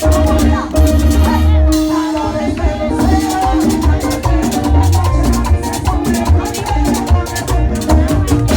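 Up-tempo Latin dance music with a pounding bass and drum beat, shakers and sustained melody notes.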